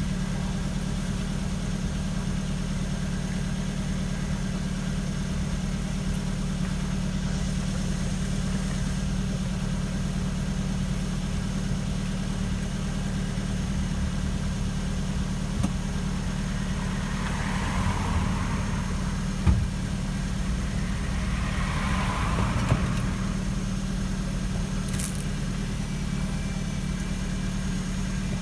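Ford Focus Mk2.5 running with a steady low hum, with a few short knocks and rattles in the second half. The rattle comes from the rear suspension, which the owner suspects is a coil spring whose rubber protector has moved so metal touches metal.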